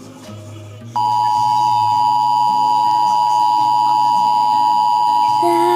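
Emergency Alert System attention signal: a loud, steady two-tone alert tone that starts about a second in and holds, two close pitches sounding together just under 1 kHz. Near the end a sliding, voice-like pitched sound joins it.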